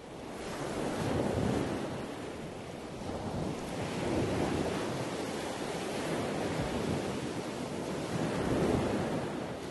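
A steady rushing noise that swells and ebbs in slow surges, three times over.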